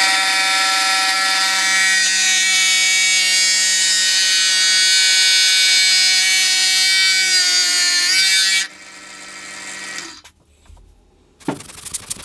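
Drill press running with a steady whine while its Forstner bit bores into wood; the pitch sags slightly under load. About three-quarters of the way through the motor is switched off and winds down, and a short clatter follows near the end.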